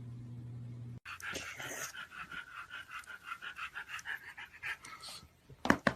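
A dog panting rapidly, about five breaths a second, each breath with a faint whine in it. It follows a low steady hum that cuts off about a second in, and a sharp knock comes near the end.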